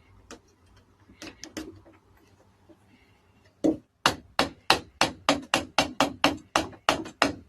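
A few light scattered knocks, then from about three and a half seconds in, a steady run of hammer blows, about three a second.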